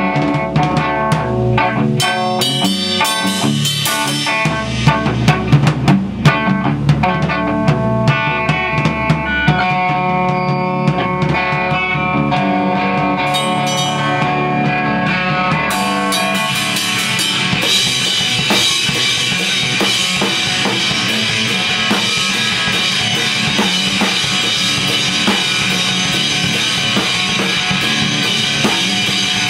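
Electric guitar and drum kit played live together in a rock jam. About halfway through the sound thickens and grows brighter, with a dense high wash over the guitar.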